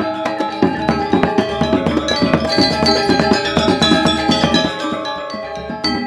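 Balinese gong kebyar gamelan playing: bronze metallophones ring in fast struck patterns. A denser run of quick low strokes starts about half a second in and thins out near the five-second mark.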